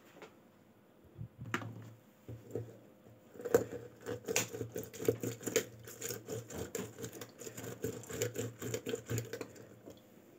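Lemon halves twisted and pressed on a plastic hand citrus juicer: a fast run of squelching, creaking clicks for several seconds, after a couple of single knocks near the start.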